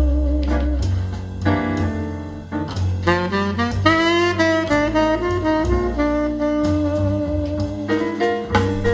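Jazz ballad played back through Harbeth Monitor 40.3 XD loudspeakers: an instrumental passage with a saxophone lead over bass and light drums, with no singing.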